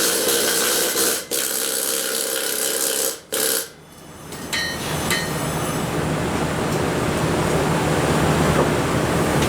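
Stick-welding arc crackling and hissing steadily as a welding rod is run. The arc breaks off about three seconds in and is struck again, running steadily from about five seconds in.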